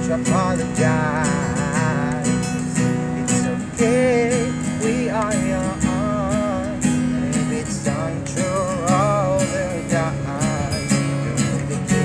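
Acoustic guitar strummed steadily while a man sings a wavering melody over it.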